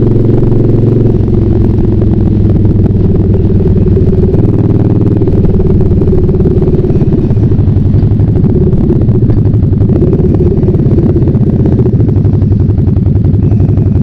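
Harley-Davidson Night Rod Special's liquid-cooled Revolution V-twin running through straight pipes while riding at road speed: a loud, steady exhaust drone with small shifts in pitch as the throttle changes, heard at its full, untoned-down volume.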